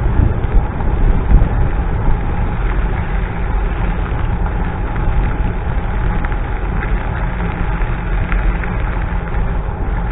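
Zero 10X electric scooter riding over pavement: wind buffeting the microphone and tyre and road rumble, with scattered small clicks and rattles.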